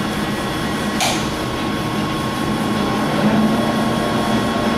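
Warner & Swasey 4A turret lathe running under power, a steady mechanical hum with a few held tones from its 40 hp main motor and headstock. A short burst of noise about a second in.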